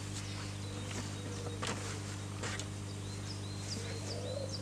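Garden ambience: small birds chirping, over a steady low hum, with a couple of light knocks as things are set down on a wooden workbench.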